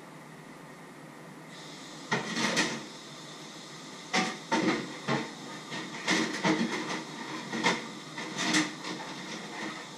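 Irregular knocks and clatters of kitchen items being handled in a lower kitchen cupboard, starting about two seconds in, over a steady hiss.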